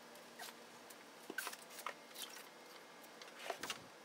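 Faint scattered scrapes and taps of a heat pump water heater tank being rocked and shuffled into place by hand, with a soft thump a little before the end.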